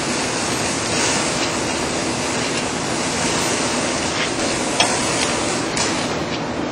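Steady loud rushing background noise, with a couple of faint clicks about four to five seconds in.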